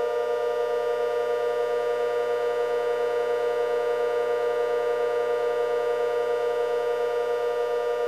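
Outdoor warning sirens sounding a steady wail held at one pitch: several tones at once in a dense chord, with a slight fast flutter and no rise or fall.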